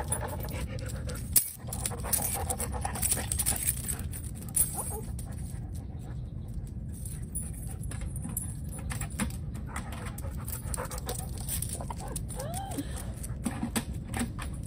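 A dog panting, over a steady low rumble, with many short sharp clicks scattered through it. A short tone rises and falls once near the end.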